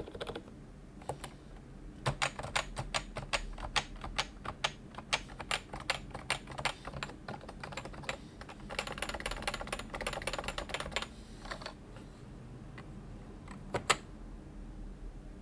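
Typing on a Realforce 106U Topre keyboard, its 45 g rubber-dome switches fitted with silencing rings under PBT keycaps. Fast continuous runs of keystrokes from about two seconds in until about eleven seconds, after a short pause, then a few scattered presses, the loudest a sharp double click near the end.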